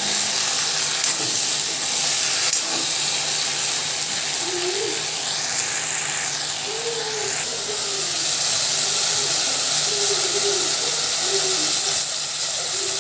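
Tomatoes, leafy greens and green chillies frying in a hot cast-iron kadai: a steady sizzling hiss.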